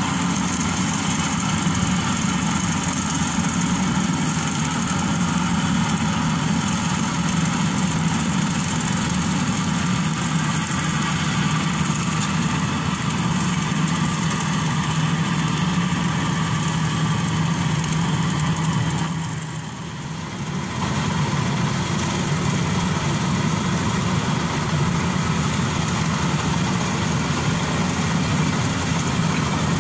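Maxxi Bimo Evo Xtreme rice combine harvester running steadily as it cuts and threshes rice, its engine and machinery making a dense, even mechanical din. The sound dips briefly about two-thirds of the way through, then picks up again.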